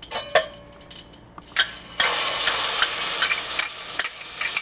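Sofrito cubes dropped into hot canola oil in an aluminum caldero: a few light knocks, then about two seconds in a sudden loud sizzle that holds and drops away near the end.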